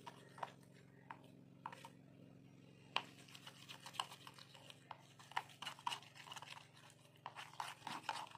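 Pantene shampoo and slime activator being stirred into a thick slime in a plastic container: soft, irregular squishing and clicking of the stirring against the container, busier in the second half. A faint steady hum lies underneath.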